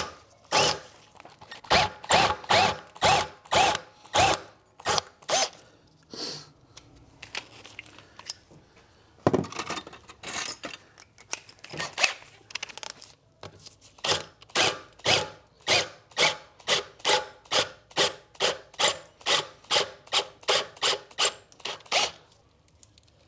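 Cordless drill with a 19/64-inch bit boring the rusted steel fuel line end out of a plastic quick-connect fitting, grinding in regular pulses about three times a second, with a quieter pause about a third of the way in.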